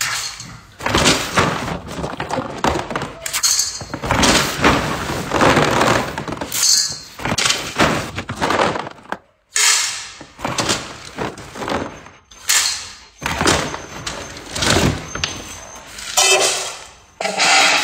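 Dry dog kibble being scooped and poured into stainless steel dog bowls, a rattling clatter that comes and goes in a dozen or so bursts.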